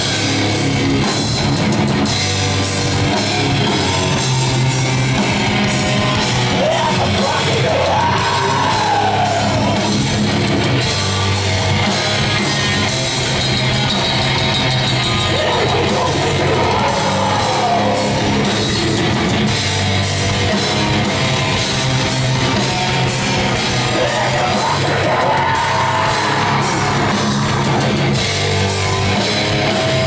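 Live death metal band playing loud: heavily distorted electric guitars over fast, dense drumming on a drum kit, with harsh yelled vocals. A rising-and-falling wail stands out three times.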